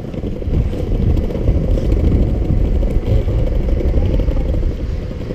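Wind buffeting the microphone of a moving motor scooter: a steady low rumble of noise that builds about half a second in.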